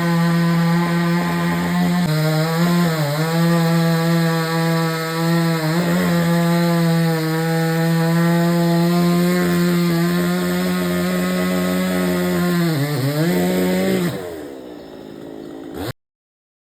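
Chainsaw running at high speed, dipping in pitch briefly a few times as it loads up in the cut. Near the end it drops in level and its pitch falls as it winds down, then the sound cuts off abruptly.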